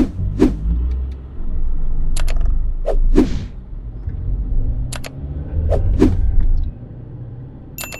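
Sound effects of an end-screen subscribe animation: swooshing pops and paired mouse clicks, the clicks about two and five seconds in. Under them runs car-cabin road and engine rumble that stops about a second before the end, and a short ringing tone starts at the very end.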